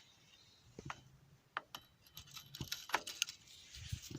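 Scattered light metallic clinks and knocks, about half a dozen spread over four seconds, as of small hard objects being handled.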